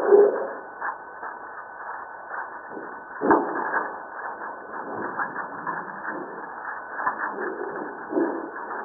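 Seismic recording of Fuego volcano sped up 150 times so the ground motion becomes audible, heard as a steady crackle of small clicks and ticks. It opens with a short loud burst of lower rumble from volcanic tremor, and about three seconds in comes one sharp, loud pop as a discrete seismic event registers.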